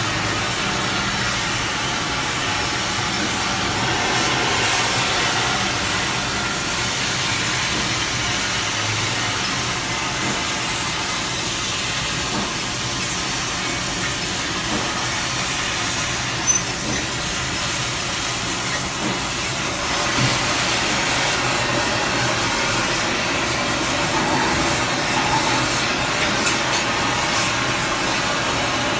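Steady, loud hiss of hot metal cutting or welding work on steel, running without a break, with a few faint knocks.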